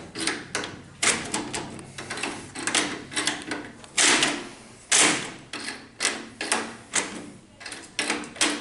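Multipoint door handle and lock being worked repeatedly to test the installation: a string of metallic clicks and clunks from the mechanism, roughly one a second, the two loudest about four and five seconds in.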